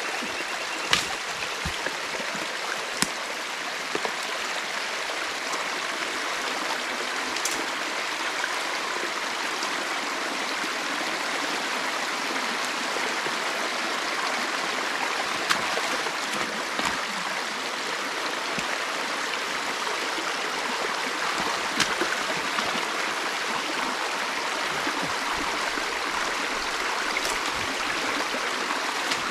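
Creek water running steadily, a continuous rushing flow, with a few brief sharp clicks scattered through it.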